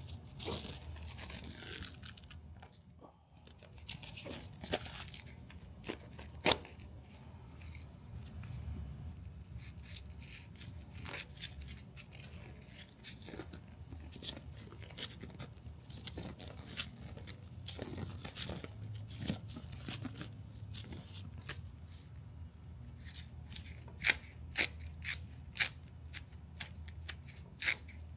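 Gloved hands wrapping and squeezing wet fiber-reinforced resin tape around a tool handle: irregular sticky peeling and crinkling, with a run of sharp clicks near the end.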